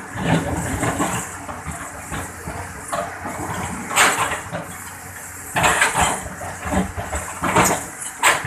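Excavator engine running steadily, with several short, loud bursts of noise: one about four seconds in and a cluster between five and a half and eight seconds.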